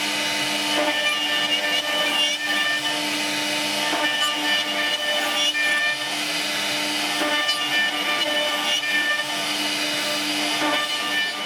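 CNC router spindle running and cutting wood: a steady whine with a few held tones over a constant cutting hiss.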